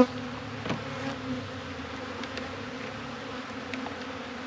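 Honey bees buzzing steadily around an open hive, a colony hum with a brief louder buzz near the start.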